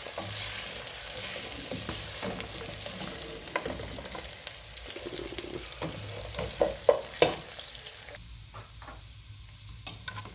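Boiled beef pieces frying in hot oil with browned onions, ginger and garlic, sizzling while being stirred in the pot, with scattered knocks and scrapes of the spoon, the loudest a few about two-thirds of the way in. The sizzle quietens near the end.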